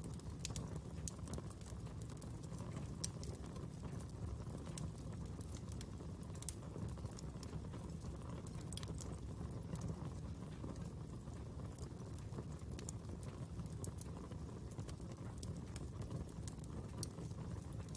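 Fire crackling: a steady low rumble with irregular sharp pops and snaps.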